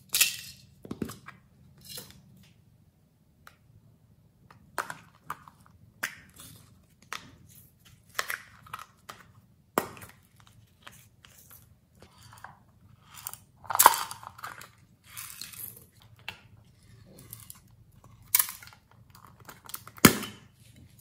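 Small plastic containers and lids clicking and knocking as they are handled and opened, in irregular taps with a few sharper knocks and short rattles of loose glitter and sequins.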